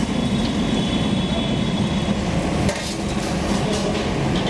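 Hot oil sizzling in an iron kadai as fried puris drain on a perforated skimmer, over a steady rush of kitchen noise, with one clank about two-thirds of the way through.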